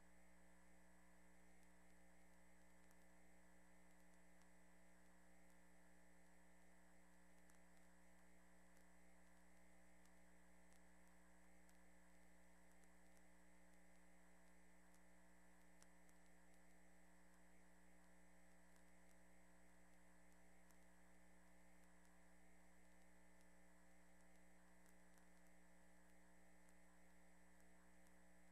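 Near silence: a faint, steady electrical hum with no speech.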